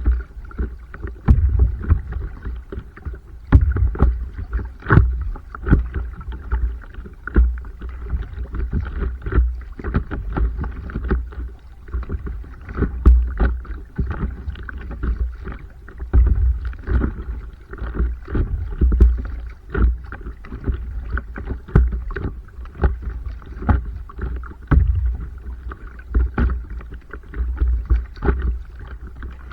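Stand-up paddleboard on open water: paddle strokes and frequent small irregular splashes and knocks of water against the board, over a constant low rumble.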